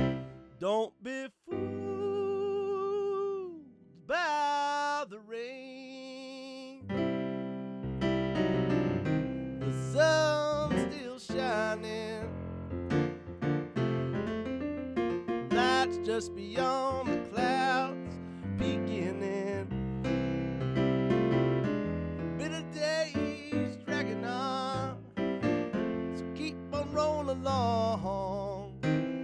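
Digital piano playing chords and melodic runs, with a male voice singing wordless held notes with vibrato over it in places.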